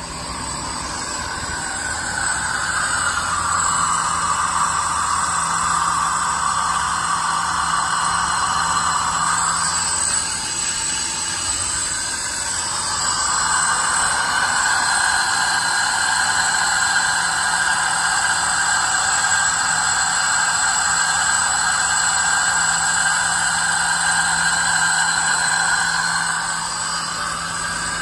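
Makino BN2-85 CNC milling machine running: a steady mechanical hum and whine with a high-pitched hiss, easing off briefly about ten seconds in and then building back up.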